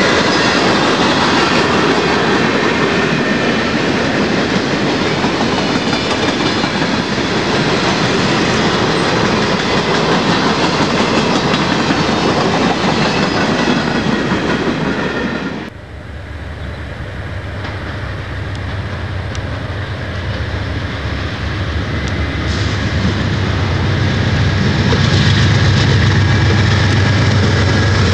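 Freight cars rolling past with steady clickety-clack of wheels over the rail joints. About halfway through the sound cuts off suddenly, and an Amtrak passenger train's low diesel rumble builds up as it arrives and passes.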